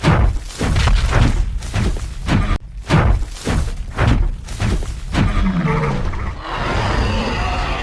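Made-up dinosaur running sound effect: heavy, deep footstep thuds about every half second. Around five seconds in the steps give way to a low call that falls in pitch, then turns into a rough, growling noise.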